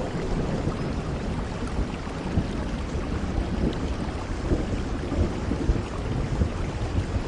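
Steady rain with a low, continuous rumble of thunder underneath.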